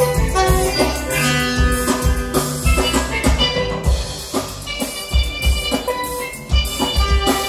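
Steelpan music with a drum kit keeping a steady beat.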